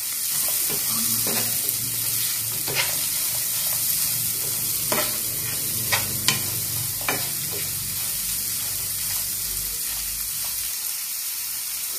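Sliced shallots sautéing in hot coconut oil in a nonstick frying pan, sizzling steadily while a spatula stirs them, with a few sharp clicks and scrapes of the spatula against the pan.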